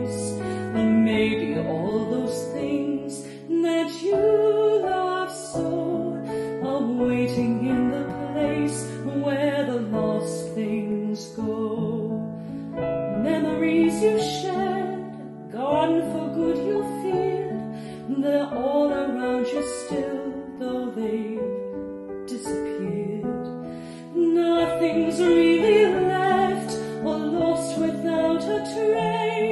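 Woman singing a slow ballad with piano accompaniment, holding long notes.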